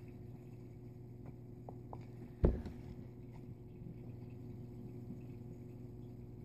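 Clear plastic cup handled against a tabletop: a single sharp knock about two and a half seconds in and a few faint clicks, over a steady low hum.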